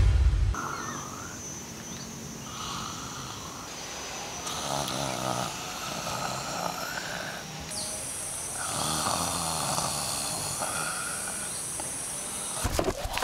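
A person snoring in a series of long drawn-out snores a few seconds apart. In the first half second the tail of a loud whoosh sound effect is heard.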